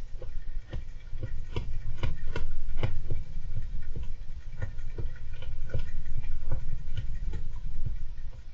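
Syrian (golden) hamster scrabbling about, a quick irregular run of small clicks and scratchy taps, over a steady low rumble.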